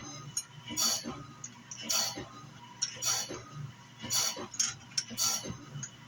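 Wood-Mizer BMS250MU CBN band-blade sharpener running and grinding a band sawmill blade tooth by tooth, one short grinding stroke with a click about every second over a steady motor hum.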